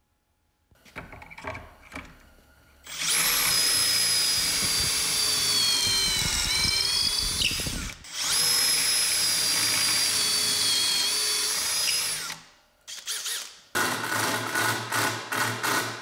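Cordless drill boring pocket holes through a 2x4 in a Kreg pocket-hole jig: two long runs of a high motor whine, the pitch sagging under load near the end of the first. After a few knocks at the start, the last few seconds hold a cordless impact driver in short bursts driving screws into the 2x4 frame.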